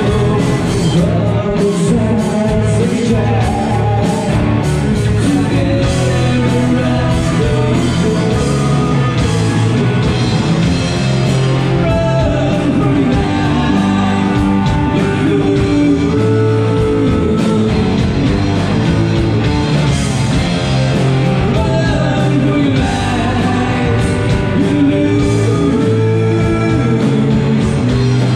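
Live rock band playing with electric guitars, bass guitar and a drum kit, a lead vocalist singing over them.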